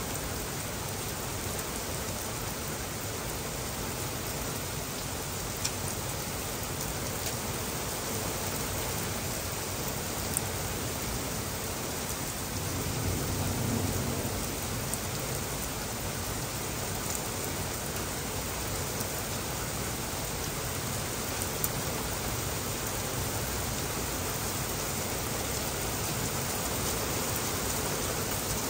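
Heavy rain falling steadily on grass, pavement and leaves: a dense, even hiss. A few single sharp drop ticks stand out, and there is a brief low swell about halfway through.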